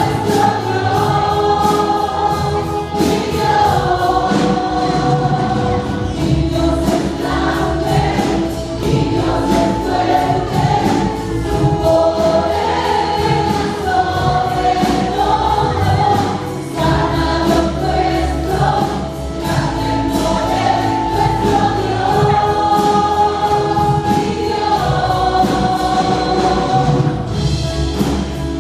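A worship team and congregation singing a Spanish-language worship song together, with band accompaniment and a steady beat over the church PA.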